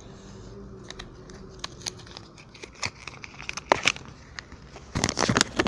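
Crinkling and rustling as a small cardboard box and its folded paper instruction sheet are handled and opened: scattered crackles that grow denser and louder near the end.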